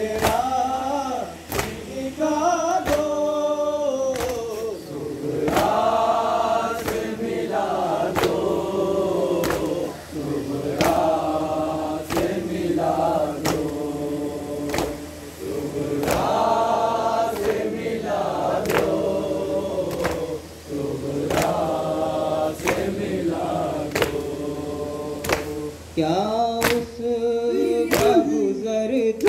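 A group of men chanting a nauha, a Muharram lament, in unison, with a sharp slap of matam (hands struck on chests) about once a second keeping the beat.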